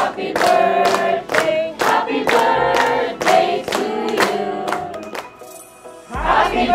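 A group of people singing together and clapping in time, about two claps a second. The singing dies away about five seconds in, and loud music with a heavy bass starts near the end.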